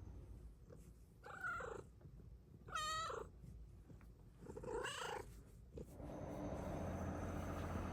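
Snow Lynx Bengal cat meowing three times, each call rising and falling in pitch, then a steady low purr sets in about six seconds in.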